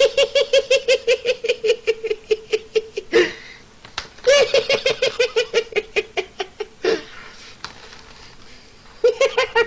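A man laughing uncontrollably in rapid, high-pitched bursts of about five or six a second. There are two long runs of giggling, each ending in a sharp gasping breath in. The laugh then goes quieter for a couple of seconds and starts up again near the end.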